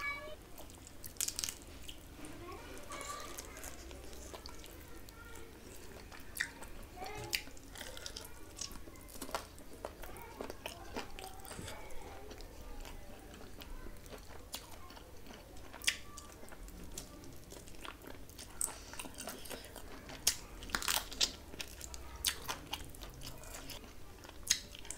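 A person chewing and biting a mouthful of chicken curry and turmeric rice eaten by hand, with many sharp mouth clicks scattered throughout.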